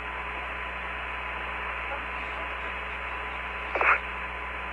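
Steady hiss and low hum of the Apollo 15 air-to-ground voice radio channel with no one talking, and a short burst about four seconds in.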